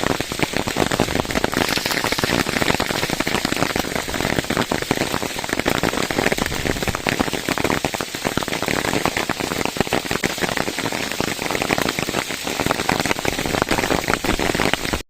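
Heavy rain pelting a surface: a dense, steady patter of countless drops, cutting off abruptly at the very end.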